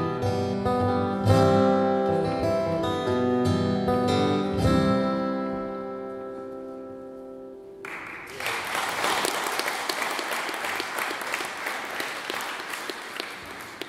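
Acoustic guitar strumming the closing chords of a song, the last chord left ringing and fading out. About eight seconds in, an audience starts applauding and keeps on clapping.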